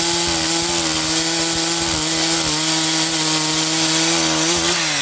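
Two-stroke gas chainsaw at full throttle, ripping lengthwise along the grain of a firewood log, with a loud, steady engine note under load. Just before the end the throttle is let off and the engine pitch falls.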